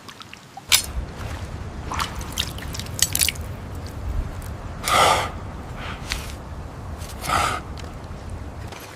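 Cave ambience: a low rumble with scattered sharp clicks and drips. There are two short, heavy breaths, about halfway through and again two seconds later.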